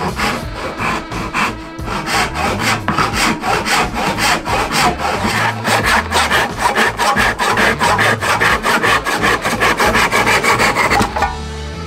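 Hand backsaw cross-cutting an ebony board: quick, even back-and-forth saw strokes that stop abruptly near the end.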